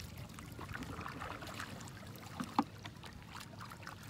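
Paddles dipping and pulling through river water beside a wooden dugout canoe, with small splashes and drips. There is a sharp knock about two and a half seconds in.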